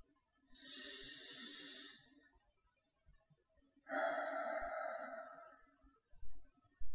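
Darth Vader-style respirator breathing: two long hissing breaths of about two seconds each, the second louder. Two brief low thumps come near the end.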